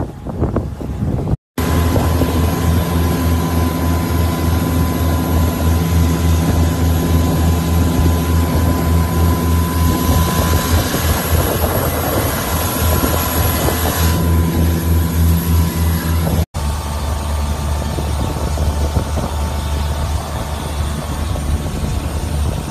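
Motorboat engine running steadily under way, a low pulsing drone. It drops out briefly twice.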